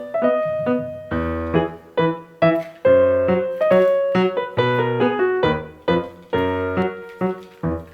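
Background piano music: a melody over chords, each note struck and left to die away.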